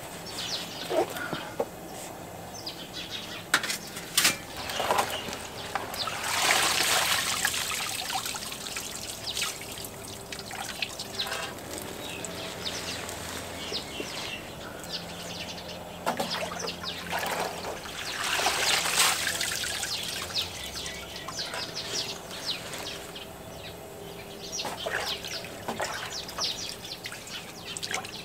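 Handfuls of fresh watercress rustling and being pushed down into a large aluminium pot of hot water, with the water splashing and bubbling. The two louder swells come about six seconds in and again around eighteen seconds. Birds chirp in the background.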